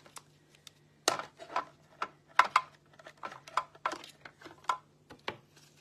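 Hard plastic cutting plates, card stock and a thin metal die clacking and tapping against each other as they are stacked into a sandwich at the platform of a manual die-cutting machine: about a dozen irregular sharp clicks.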